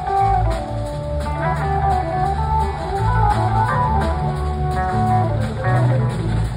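A live blues-rock band playing loud through a PA, heard from the audience. An electric guitar lead plays gliding melodic lines over bass and drums.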